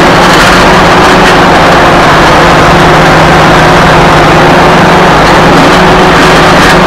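John Deere 450C crawler dozer's diesel engine running steadily and very loud, heard close up from a camera on the machine, as the dozer creeps forward.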